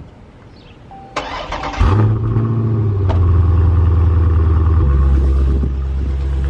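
Dodge Challenger Scat Pack's 6.4-litre HEMI V8 being started after an oil change: the starter cranks about a second in, the engine catches almost at once, flares, and settles into a loud steady idle that drops a little in pitch near the end.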